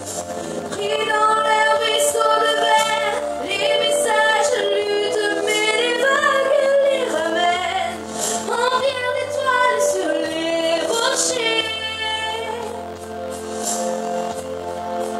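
A woman singing into a microphone over instrumental accompaniment. She holds long notes, some steady and some sliding and wavering in pitch.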